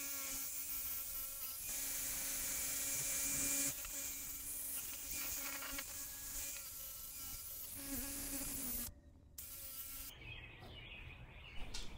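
Cordless drill spinning a wire wheel brush against a steel parallel-clamp bar, scrubbing hardened wood glue off it: a steady buzzing motor whine with the scratchy hiss of the wire bristles. The whine drops away and comes back a few times, cuts out briefly about nine seconds in, and is quieter after that.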